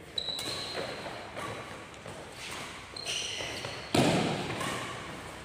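Badminton rally in an echoing indoor hall: several sharp racket-on-shuttlecock hits, with short high squeaks of shoes on the wooden court, and a heavy thump about four seconds in that is the loudest sound.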